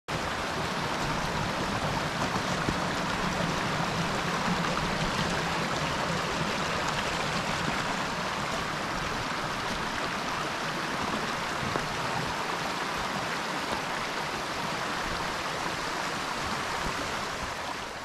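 Shallow mountain stream running over rocks, a steady rush of water that dips slightly near the end.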